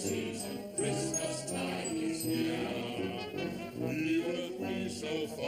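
A group of voices singing a Christmas song chorus over instrumental backing, with a few high tinkling bell notes.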